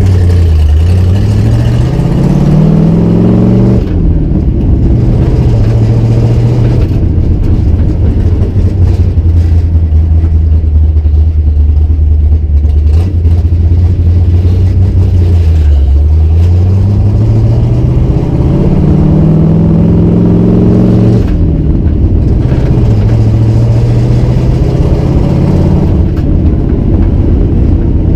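Cammed 351 Windsor V8 with forward-facing headers in a Fox-body Mustang, heard from inside the cabin while driving. The revs climb, drop at a shift about four seconds in, and hold steady. Past the middle they climb again and drop at another shift, then settle into a steady cruise.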